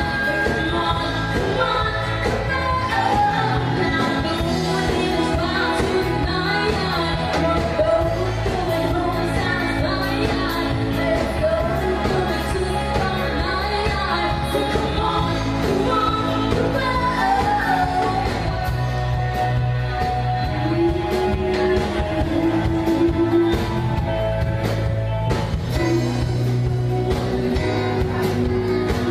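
Live band playing pop-rock, with a woman singing lead into a handheld microphone over electric guitar, bass, keyboard and drums.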